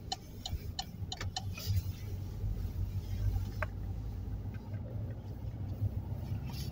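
Inside a moving car: a turn-signal indicator ticks about three times a second for the first second and a half, over the steady low rumble of the engine and tyres.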